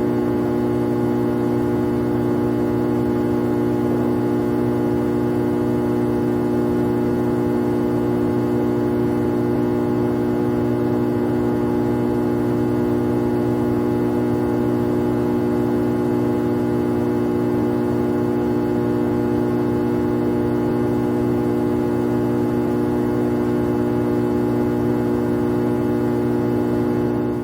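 A steady, unchanging machine hum made of several fixed tones, fading out at the end.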